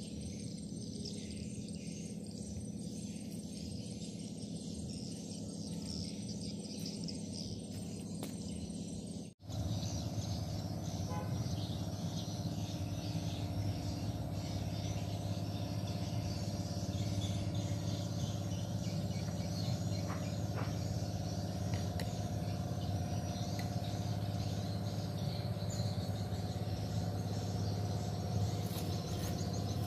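Outdoor natural ambience: birds and insects chirping over a steady low hum, broken by a brief sudden drop-out about nine seconds in, after which it carries on.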